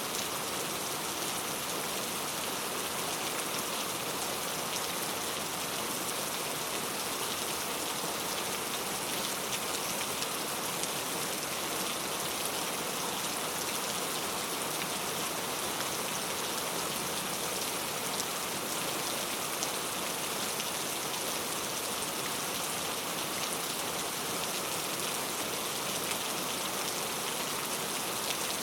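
Heavy rain falling in a steady, even hiss with no let-up.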